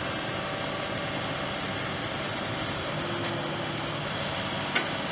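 Truck engine running steadily, the work truck powering the crane that holds the log, with one short sharp click near the end.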